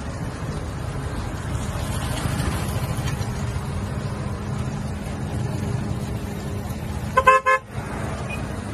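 A vehicle horn sounds a few quick toots about seven seconds in, over a steady low rumble of road noise.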